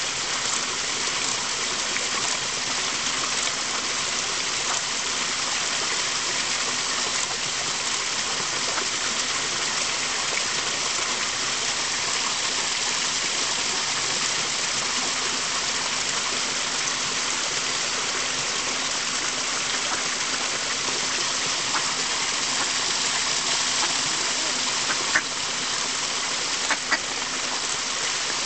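Steady rush of flowing water. A few short mallard quacks come in near the end.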